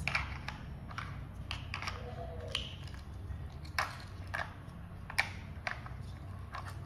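Light, irregular plastic clicks and taps of toy pizza slices being fitted together on a plastic toy plate.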